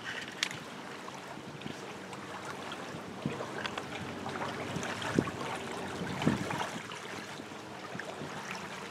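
Wind buffeting the microphone with a steady rushing hiss, with light rustling and a few soft knocks on top, the strongest about five and six seconds in.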